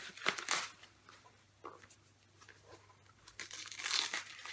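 Wrapping paper or plastic rustling and crinkling in short bursts as a wrapped album is handled and opened, loudest about four seconds in.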